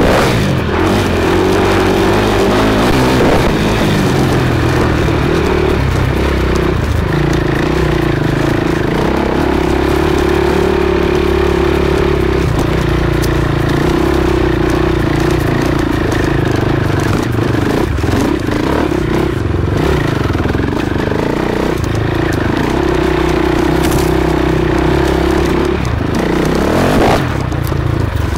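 Enduro motorcycle engine running hard from on board the bike, its revs shifting up and down with the throttle, with a few knocks.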